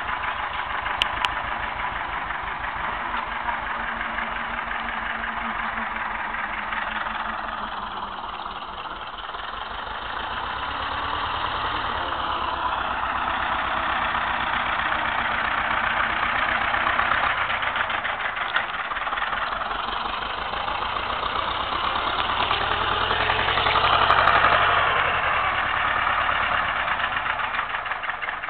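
Small farm tractor's diesel engine running steadily with a knocking clatter as it pulls a spinner potato digger through the soil, getting louder as it comes close about twenty-four seconds in.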